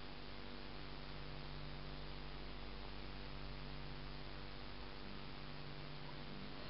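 Steady electrical hum with an even hiss underneath, with no distinct handling sounds.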